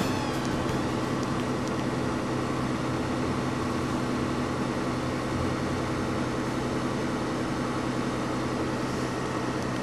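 A car engine idling steadily: an even, low hum with a steady hiss over it, unchanging throughout.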